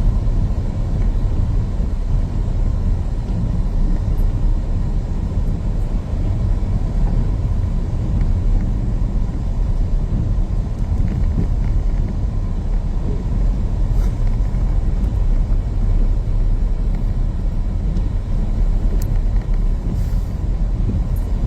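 A loud, steady low rumble that runs without a break, with a few faint ticks over it.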